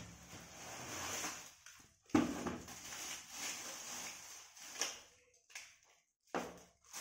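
Plastic bags crinkling and rustling as the parts of a ring light kit are handled and unpacked from their cardboard box, with a sudden louder handling noise about two seconds in.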